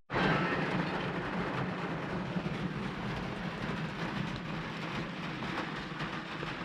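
Steady rushing of a river running high after heavy rain.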